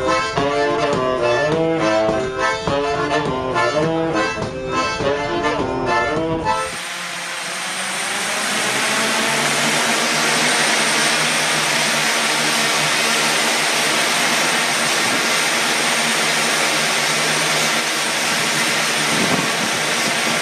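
An accordion and a saxophone play a quick tune, which stops abruptly about a third of the way in. It gives way to the steady whir of a flying bicycle's caged propellers, which builds over a couple of seconds and then holds as the bike lifts off.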